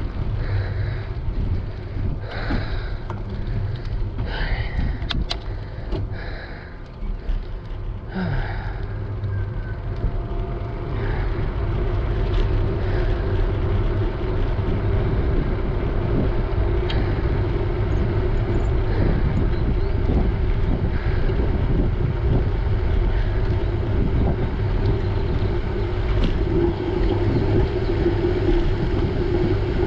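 Wind rushing over the microphone of a bike-mounted GoPro, with the rumble of bicycle tyres rolling on asphalt. It grows steadier and a little louder from about ten seconds in.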